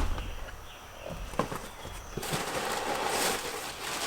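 Packaging being handled: a couple of light knocks, then packing paper rustling steadily from about halfway through.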